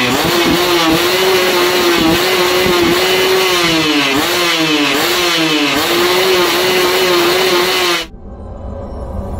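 Yamaha 125Z two-stroke single-cylinder engine revved high, the pitch dipping and climbing back several times with throttle blips. It cuts off suddenly about eight seconds in, and quieter intro music takes over.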